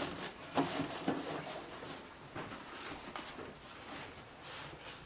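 Light knocks and rustling from handling a gun case, a few small taps as an insert layer is set down in place, growing fainter toward the end.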